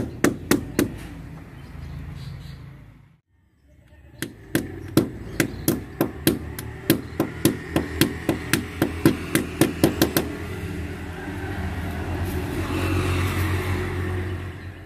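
Hammer blows in quick runs of about three to four a second, fixing pipe clamps that hold a lightning-conductor pipe against a wall. The blows break off briefly, resume for about six seconds, then stop, leaving a steady rushing noise near the end.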